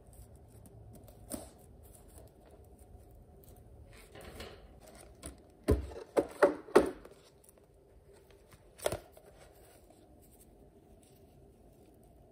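A few sharp knocks and clatters of objects being handled, over a faint steady room hum: a single knock about a second and a half in, a quick run of four or five louder knocks about halfway through, and one more a couple of seconds later.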